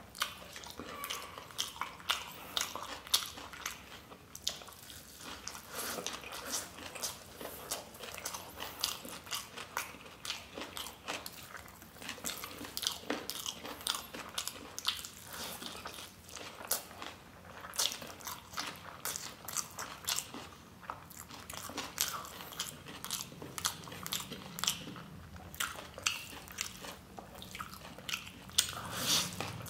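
A person chewing big mouthfuls of spicy chowmein noodles eaten by hand, close to the microphone: a dense, irregular stream of wet mouth clicks.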